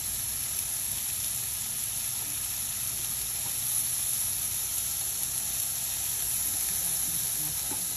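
Pork ribs sizzling steadily on a hot electric indoor grill plate.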